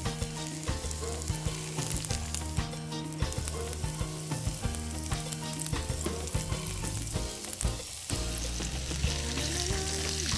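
Stuffed tofu triangles, breaded in cornstarch and flour, sizzling as they shallow-fry in hot oil in a saucepan, with frequent sharp crackles.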